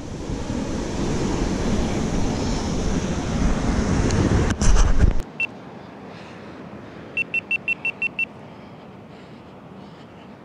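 Wind buffeting the microphone over breaking surf, with a few handling clicks, cutting off about five seconds in. After that comes a single high electronic beep, and a couple of seconds later a quick run of seven evenly spaced beeps at the same pitch.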